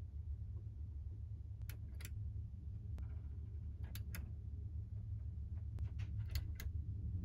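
Push buttons on a capsule-bed control panel clicking as they are pressed and released, in several quick pairs of clicks, over a steady low hum.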